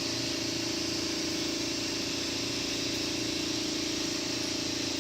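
An engine running steadily at idle, with an even hum that does not change in pitch.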